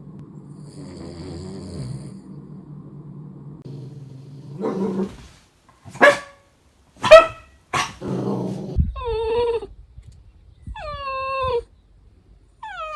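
Cavalier King Charles Spaniel vocalising: a low rumble for the first few seconds, then a short growl and three sharp barks. Another growl follows, then three high whimpering whines, each falling in pitch.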